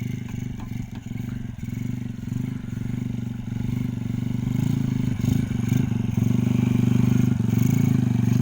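Honda C70 motorcycle's small single-cylinder four-stroke engine running under throttle, getting louder about halfway through and then holding steady.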